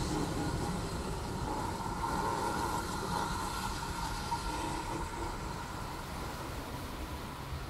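A steam train of a GWR 6400-class pannier tank locomotive and two Mark 1 coaches pulling away, its low rumble slowly fading as it recedes, with a thin high ring partway through.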